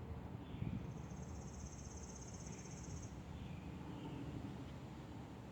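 An insect trilling, a high, rapidly pulsing buzz that starts about a second in and lasts about two seconds, over faint occasional bird chirps and a low outdoor rumble.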